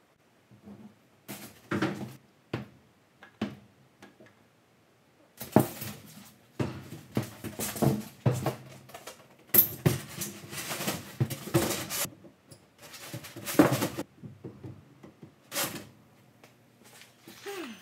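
A large rigid foam insulation board being lifted, rubbed and knocked against a wooden frame as it is fitted in place: irregular knocks and scraping in clusters, with short pauses.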